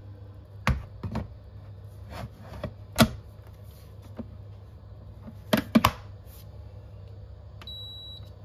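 Electric rice cooker being loaded and started: hard knocks and clicks as the inner pot is set in and the lid is shut, the loudest a knock about 3 s in and a quick cluster of clicks a little before 6 s. Near the end a high electronic beep sounds as a button is pressed on the control panel.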